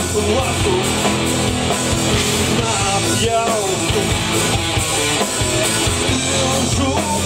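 Live rock band playing loud: distorted electric guitars, bass guitar and drum kit in a steady, driving rock song.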